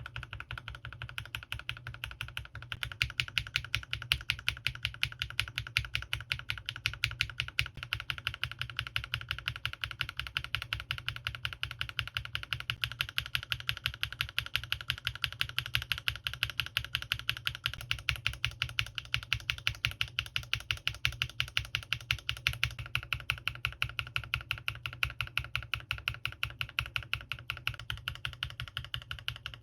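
A single key on a mechanical keyboard with lubed linear switches and PBT keycaps, pressed down and released over and over in a quick, steady rhythm. The click tone changes about three seconds in and again about three quarters of the way through, as a different switch is tested.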